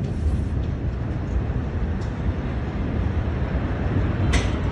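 A low, steady rumble, with a brief sharp crackle about four seconds in.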